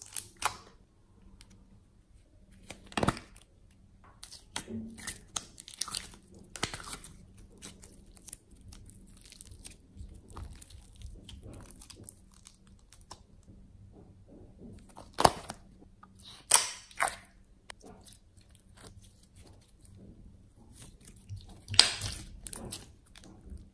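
Slime squished, stirred and squeezed by hand in a bowl: wet clicks, crackles and pops with soft squelching between, a few pops much sharper than the rest, the sharpest near the end.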